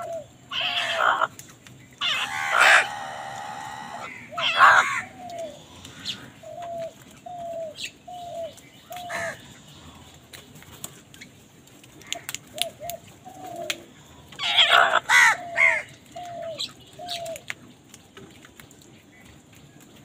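A flock of house crows calling: loud, harsh caws in bursts in the first few seconds and again later, with runs of short, evenly spaced calls in between.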